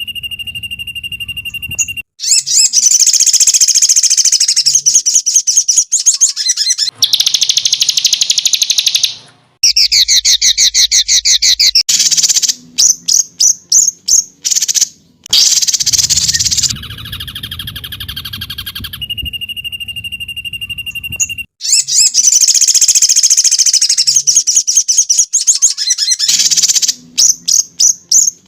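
Songbird masteran recording for training caged birds: loud, rapid high-pitched trills and chattering bursts alternate with runs of separate sharp chips and a held whistle. The bursts start and stop abruptly, and a section repeats, as in an edited loop.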